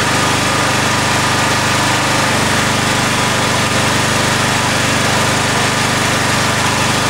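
Honda EM4500S generator's engine running steadily at its governed speed, with an electrical load applied to test the governor setting.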